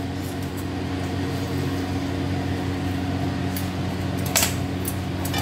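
Steady low mechanical hum, several level tones held without change, with a single sharp click about four seconds in.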